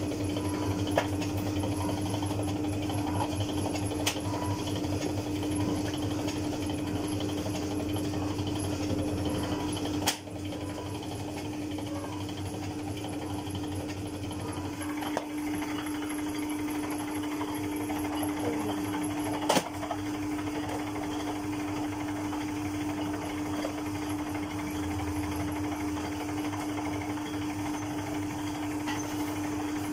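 Motor-driven dough roller machine running steadily as noodle dough passes through its rollers, with a constant hum and a fast low rattle. Two sharp knocks, about ten seconds in and near twenty seconds.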